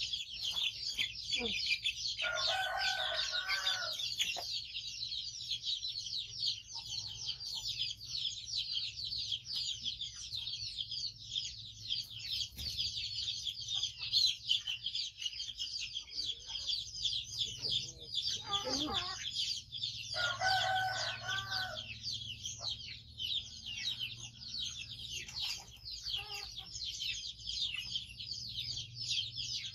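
A rooster crowing twice, a few seconds in and again about twenty seconds in, over a continuous high-pitched chirring chorus.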